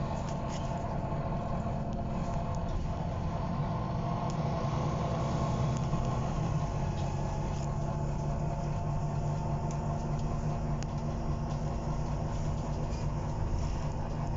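Volvo B9TL bus's six-cylinder diesel engine running steadily, heard from inside the passenger cabin as a low drone. The engine note grows a little stronger about four seconds in and eases again a few seconds later.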